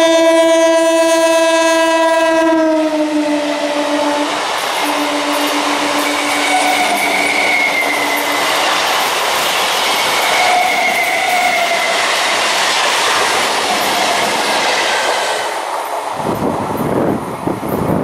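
An EMU local train's horn blowing a long chord as the train comes on. It drops in pitch as the front passes and fades out. Then the coaches run by, wheels rumbling and clattering over the rail joints with a wavering high whine. Near the end this gives way suddenly to wind buffeting the microphone.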